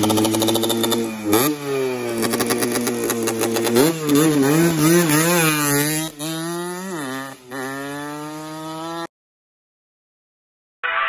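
Yamaha 125ZR two-stroke single-cylinder engine, tuned with a DT-spec piston and fitted with a barrel exhaust, revving loudly as the bike rides off. The pitch climbs sharply about a second in, wavers up and down with the throttle for a few seconds, then holds steady before cutting off abruptly.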